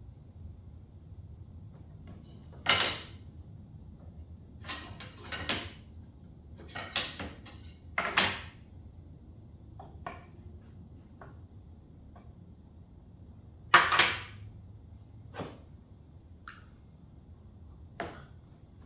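Separate knocks and clacks of a wooden drawer and its slides being handled and set in place, about a dozen in all. The loudest come about three seconds in and about fourteen seconds in, over a faint low hum.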